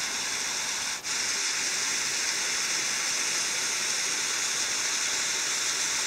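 Creek water rushing steadily at a small dam's intake, an even hiss with a brief break about a second in.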